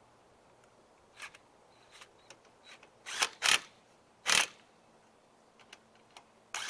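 Impact wrench fired in short bursts, three close together in the middle and another at the very end, running lug nuts onto the wheel studs. Light clicks and taps from handling the nuts come before the bursts.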